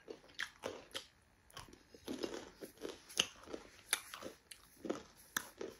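A person chewing and biting into a slice of pizza close to the microphone, with faint, irregular crunches of the crust, about two or three a second.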